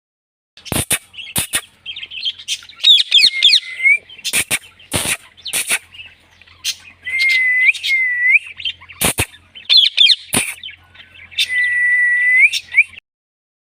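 Indian ringneck parrot vocalising: sharp clicks mixed with chirps, quick warbling trills and whistles, including a long level whistle near the end.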